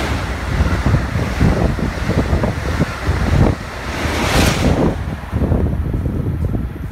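Amtrak Acela Express high-speed trainset passing close by at speed: a loud rush of air with wheel rumble and low thumping, and wind buffeting the microphone. The rush surges about four and a half seconds in.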